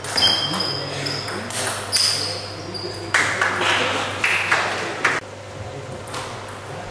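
Table tennis rally: the celluloid ball clicking off the bats and pinging on the table, a hit or bounce roughly every half second, stopping about five seconds in.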